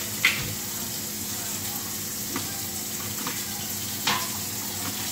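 Kitchen tap running steadily into a stainless steel sink, with a few short crackles of the plastic wrapping of a pork butt roast being pulled open, near the start and again about four seconds in.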